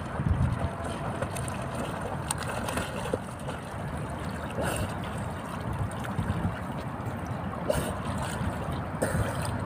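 Water splashing and lapping from a swimmer's strokes in open water cut through ice, over a steady low rumble.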